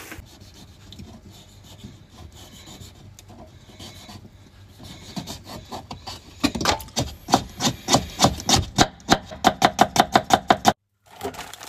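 Kitchen knife scraping and paring a carrot, then rapid chopping on a wooden cutting board at about four or five strokes a second, which cuts off abruptly near the end.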